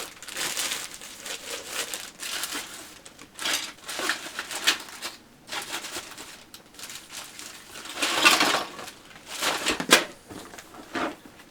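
Packaging crinkling and rustling in irregular bursts as a model kit and its bagged parts are handled, loudest about eight and ten seconds in.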